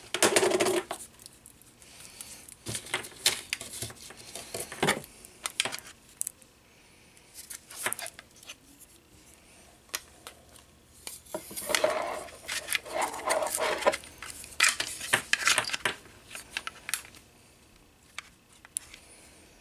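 Hikvision mini dome camera and its plastic mounting base being handled: irregular clicks, taps and rustling in clusters, loudest near the start and again about halfway through.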